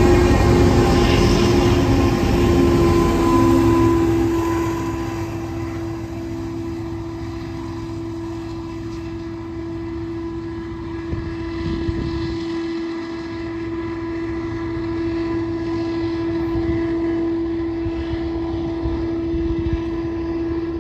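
Rear-end GE ET44ACH diesel locomotives working hard, pushing a loaded coal train up a steep grade. They are loud as they pass, fade over the first few seconds as they pull away, then leave a steady drone with a constant tone.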